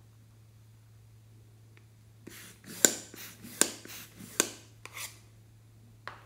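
Hard plastic clicks and clatter from a purple plastic plunger tool being handled, starting about two seconds in, with three louder clicks roughly a second apart. Two faint clicks come near the end.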